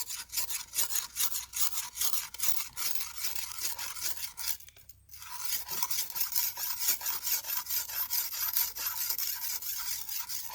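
Sickle blade being whetted with quick back-and-forth rasping strokes, several a second, with a short pause about halfway through.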